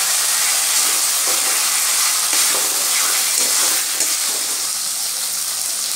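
Chopped onion, ginger-garlic paste and tomato pieces sizzle in oil in a hot pan, a steady hiss. A spatula stirs through them with soft, repeated scraping strokes against the pan.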